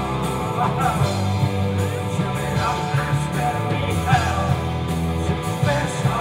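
Live rock band playing: electric guitars and drums, with a male singer's vocals over them.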